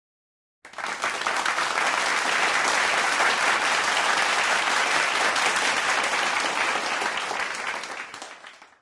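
A crowd applauding, starting suddenly about half a second in and fading out near the end.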